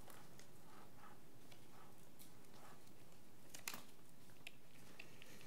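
Soft rustling of papers being handled and leafed through, a few faint rustles spread out, with one sharper crisp rustle about three and a half seconds in, over quiet room tone.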